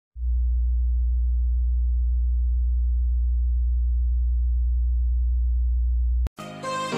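A steady, very low electronic bass tone at one pitch, held for about six seconds, that cuts off abruptly. Music starts just before the end.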